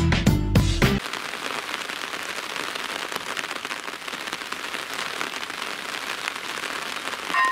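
Steady rain falling on wet tarmac, grass and the track, an even hiss of drops; guitar music cuts off about a second in. Right at the end, the level crossing's electronic warning bell starts to ring.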